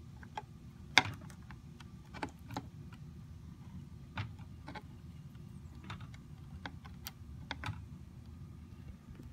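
Small plastic clicks and taps, scattered irregularly, as hoverboard motor-wire connectors are pulled apart and handled by hand. The loudest click comes about a second in.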